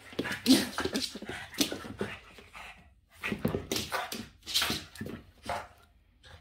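Boston terrier making short excited noises as it plays with a feather duster, a quick run of bursts broken by a brief pause about three seconds in.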